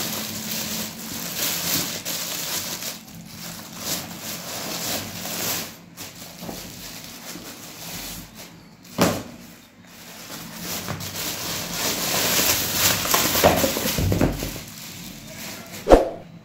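Thin plastic carrier bag rustling and crinkling as schoolbooks are pulled out of it and handled, with two sharper knocks, one about halfway through and one near the end.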